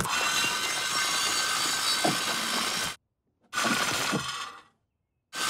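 Cartoon sound effect: a harsh, buzzy, crackling noise for about three seconds, then after a short gap a second, shorter burst of the same kind.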